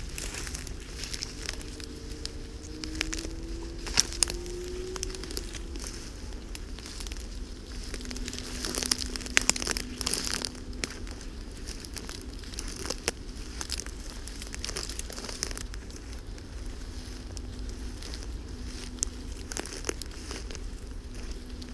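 Tall dry grass and brush rustling and crackling as a walker and a leashed wolf push through it, with irregular crunching footsteps and a few sharper snaps of stems.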